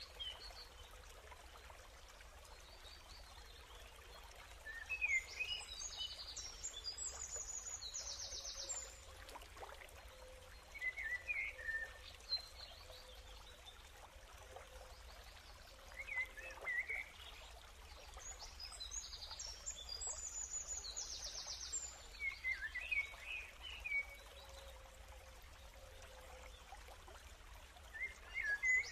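Birds chirping in scattered short bursts of high calls every few seconds, over a faint steady hiss.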